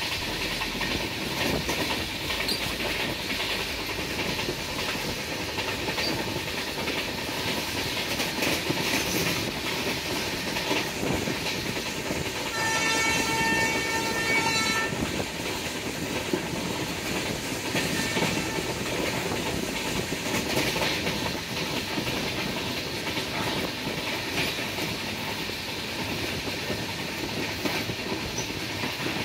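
A passenger express train running on the rails, its wheels keeping up a steady clickety-clack. About halfway through, the train's horn sounds for about two seconds.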